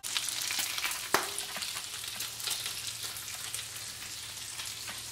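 Bacon strips sizzling and crackling in a frying pan, with one sharper pop about a second in. A faint steady low hum sits under it from about two seconds in.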